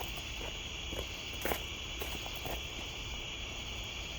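Steady chorus of crickets chirping in the night air, with a faint short click about a second and a half in.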